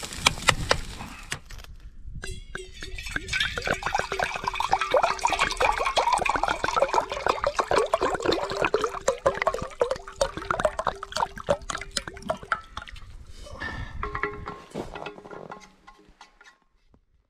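Liquid bubbling and crackling with a steady low tone under it, thinning out and fading away near the end.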